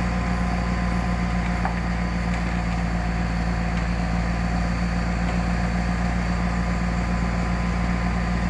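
Komatsu PC200-6 excavator's diesel engine running steadily at an even, low speed.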